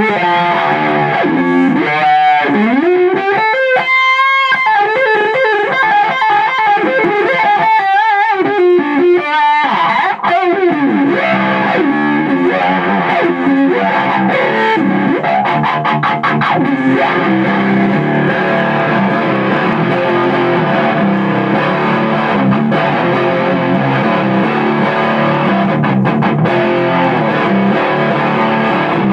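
Distorted electric guitar played through a Jet City 20-watt tube amp head and a 2x12 cabinet with Eminence Governor and Swamp Thing speakers. Held notes with wide vibrato and bends fill the first ten seconds or so, then a slide down leads into a busy run of riffs and chords.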